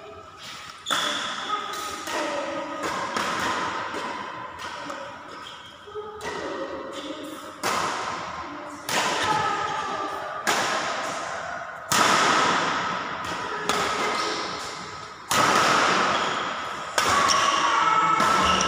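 Badminton rackets hitting a shuttlecock in a rally: sharp cracks every one to two seconds, each ringing on in a large echoing hall.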